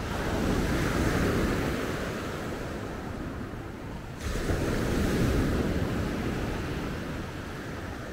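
Ocean surf breaking and washing up the shore, swelling twice, the second time abruptly about four seconds in, with a low rumble of wind on the microphone.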